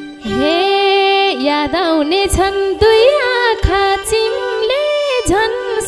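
A woman singing a solo line of a Nepali lok dohori folk song into a microphone, with a richly ornamented, gliding melody over held keyboard notes.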